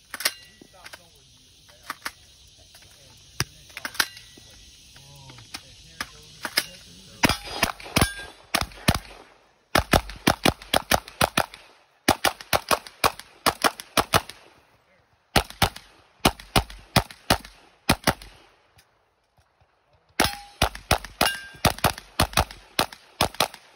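Pistol-caliber carbine firing in a USPSA stage: a few spaced shots at first, then rapid strings of shots from about seven seconds in, broken by short pauses. Some hits leave steel targets ringing.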